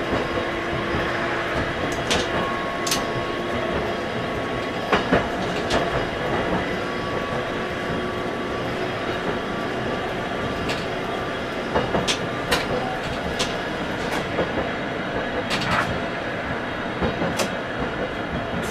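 Toyohashi Railway tram running along street track, heard from inside the car: a steady rumble of wheels on rail, with a faint steady whine through the first half and irregular sharp clicks and knocks.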